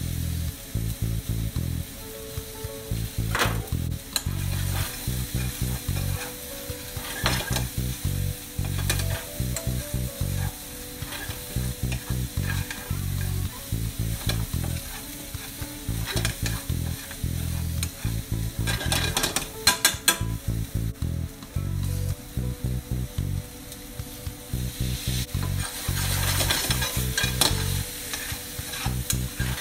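Minced chicken and vegetables sizzling in a hot metal frying pan as a metal spatula stirs and scrapes through them, with sharper clinks of the spatula against the pan, the most intense about two-thirds of the way through.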